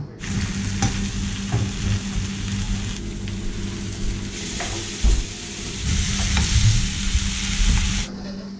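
Two steaks sizzling in a non-stick frying pan on a gas hob, fried dry without oil, over a steady low hum. The sizzle stops abruptly near the end.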